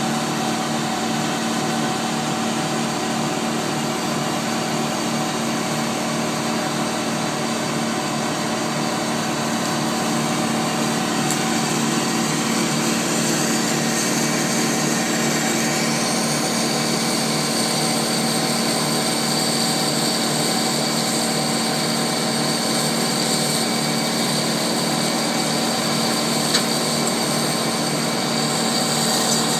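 Tow-behind wood chipper's engine running steadily at a constant speed, with one sharp knock near the end.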